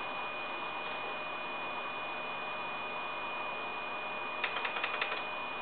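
Steady electrical hum and hiss with a faint high-pitched whine from a running computer setup. About four and a half seconds in comes a quick run of about eight light clicks.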